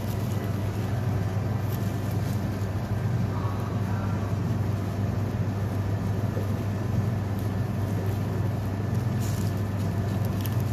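Steady low machinery hum, with a few faint knocks in the second half.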